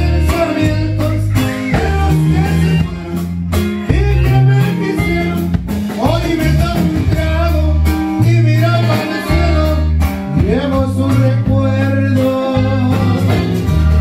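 Live norteño band playing: button accordion carrying the melody over acoustic guitar, electric bass and a drum kit keeping a steady beat.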